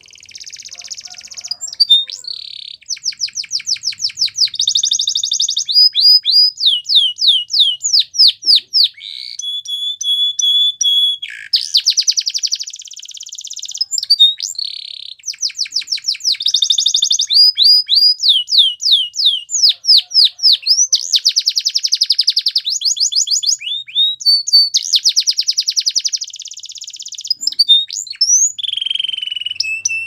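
Domestic canary singing a long, unbroken song of fast trills. Each trill is a run of one repeated note, and the song switches to a new trill every second or two. It mixes rapid sweeping notes with dense buzzy rolls and a held whistle about ten seconds in.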